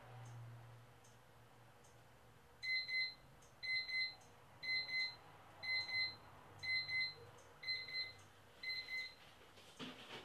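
Digital alarm clock beeping: seven high-pitched double beeps, about one pair a second, starting a couple of seconds in, over a faint low room hum.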